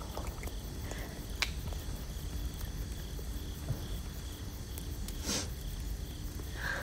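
Quiet background ambience: a steady low rumble with a few scattered small clicks, and a short rustle about five seconds in.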